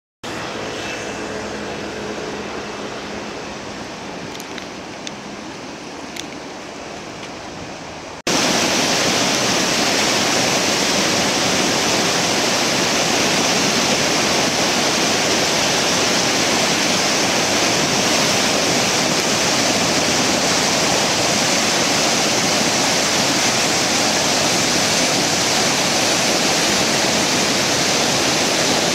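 Seta River in flood after heavy rain, churning through rapids: a loud, steady rush of turbulent water that cuts in abruptly about eight seconds in. Before that there is a quieter steady hiss with a few faint ticks.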